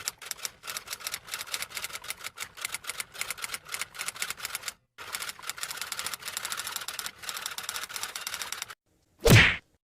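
Typewriter keys clacking in rapid, uneven runs, with a brief break about five seconds in. A single loud, short sound comes near the end.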